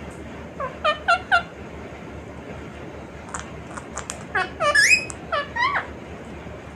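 Indian ringneck parrot calling: three short, loud, falling calls in quick succession about a second in, then a burst of chattering calls with rising and falling notes around four to six seconds in.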